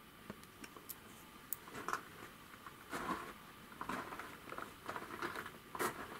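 Rustling and light clicks of handling noise, sparse at first and busier from about two seconds in, over a faint steady hum.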